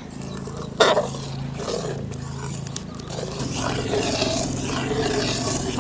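A pot of herbal rasam boiling hard on a fired stove, over a steady low hum, with one sharp click about a second in.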